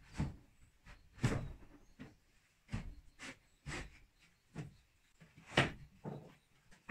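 About ten irregular knocks and clatters from hand work on bamboo, the loudest near the start and about five and a half seconds in.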